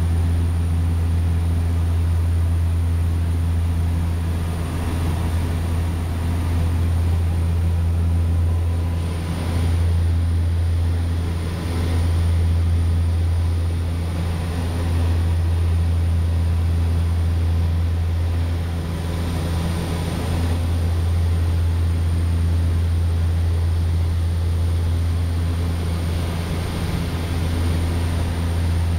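Floatplane's engines and propellers heard from inside the cockpit in flight: a steady low propeller drone that swells and eases gently in loudness.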